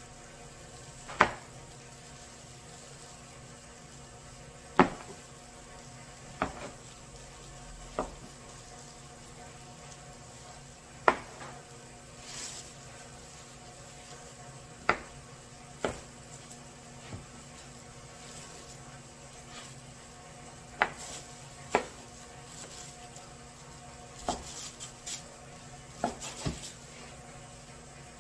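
Sharp knocks and clatters at irregular intervals, one to four seconds apart and coming quicker near the end, over a steady background hum.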